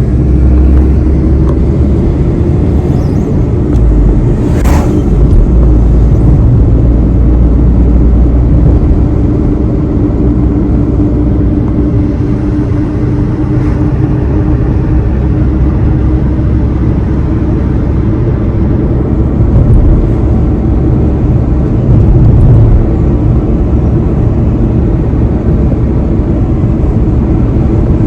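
A car driving along a road, heard from inside the cabin: steady engine and tyre rumble with a droning hum, and one brief click about five seconds in.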